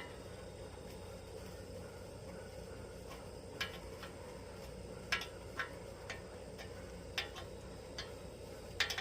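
Scattered sharp metallic clicks and taps, about seven of them at uneven intervals, from a hand tool working a bolt on the condenser fan motor and blade, over a faint steady background hum.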